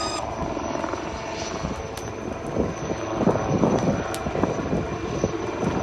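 HAL Light Combat Helicopter, a twin-turboshaft attack helicopter, flying low past with its rotor beating and a steady high turbine whine. The beating swells loudest about halfway through as it comes closest.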